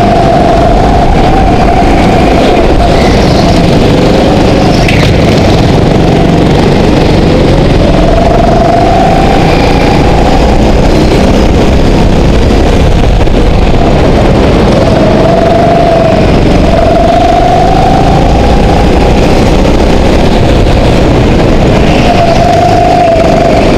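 Go-kart engine running loud under the onboard camera, its pitch rising and falling repeatedly as the throttle comes on and off through the corners.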